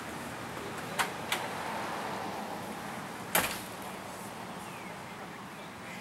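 A few sharp knocks: two close together about a second in, then a louder one about three and a half seconds in, with a faint scraping rustle between them.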